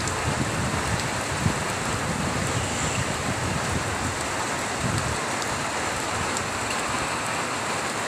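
Heavy tropical downpour in a squall, an even, continuous rush of rain, with gusts of strong wind making uneven low rumbles.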